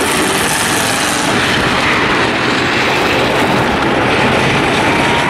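Race car engines of several cars towing boat trailers around a short oval, one loud, steady, noisy din with no single engine note standing out.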